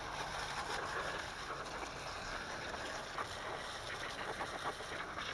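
Garden hose water spraying steadily against the underside of a 1/5-scale RC buggy, rinsing the Simple Green and dirt off.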